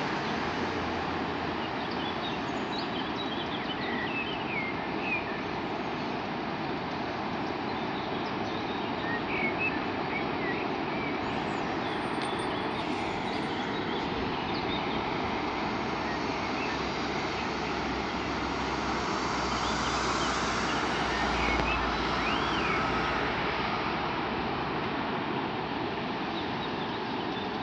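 A steady rushing noise with short bird chirps over it; a low rumble swells briefly about two-thirds of the way through.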